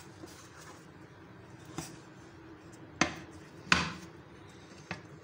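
A few separate sharp knocks of a china plate against an aluminium cake tin as the tin is turned over onto the plate, the two loudest about three and nearly four seconds in.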